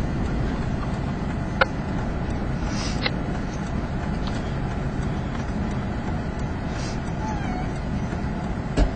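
Steady low rumble of a vehicle driving, heard from inside the cabin, with two sharp clicks about a second and a half and three seconds in.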